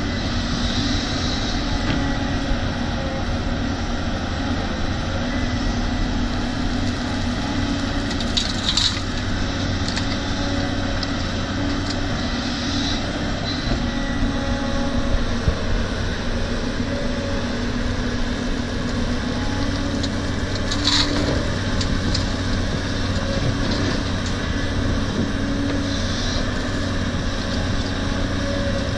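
CAT 320D hydraulic excavator's diesel engine running steadily under load as it digs and swings laterite soil into a dump truck, with a few brief scrapes and clanks from the bucket and the soil.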